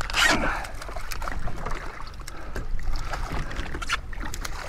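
Hooked gafftopsail catfish splashing and thrashing at the surface beside a jet ski as it is reeled in, with a louder splash just after the start and water washing and dripping throughout.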